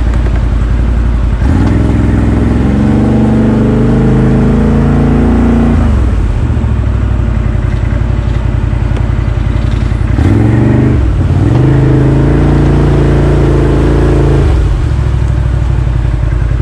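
ATV engine running under the rider as it drives through muddy water. It revs up twice, each time for about four seconds, and falls back to a lower run in between.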